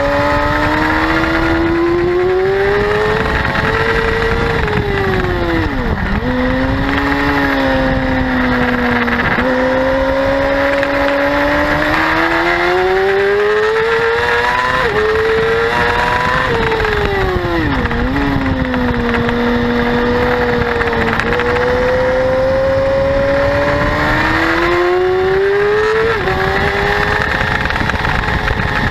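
Yamaha R6 inline-four sport bike engine at racing pace, revving up through the gears with quick step-drops at each upshift. Twice the revs fall away as it slows for a corner, then climb again on the exit.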